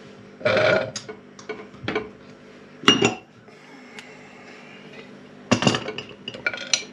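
Heavy metal lid of an Afghan kazan pressure cooker being set on the pot, with a loud clank about half a second in and another sharp clank near three seconds. From about five and a half seconds, the metal clamp bar is fitted over the lid with a run of clinking and scraping, metal on metal.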